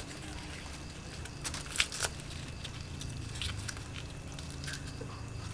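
Dry, papery hornet-nest comb being crackled and torn apart by hand, with scattered sharp crackles that cluster about one and a half to two seconds in and again around three and a half seconds. A low steady hum lies underneath.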